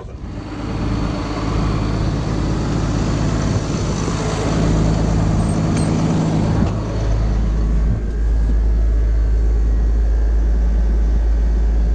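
Tractor engine running steadily close by, growing louder about a second in and again from about seven seconds in.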